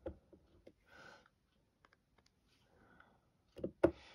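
Faint scattered taps and clicks of a diamond-painting drill pen picking up resin drills and pressing them onto the canvas, with two louder knocks near the end.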